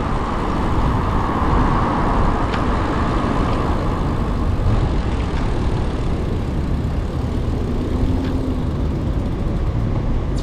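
Road traffic noise heard from a moving bicycle: a steady rush of passing vehicles over a deep, uneven rumble. A louder band of noise in the first few seconds fades away, like a vehicle going by.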